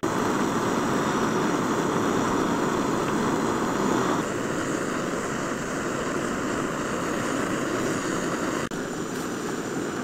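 Screw-on gas canister camping stove burning under a pot of sauce, a steady hiss of the flame. The level shifts a little about four seconds in and dips briefly near nine seconds.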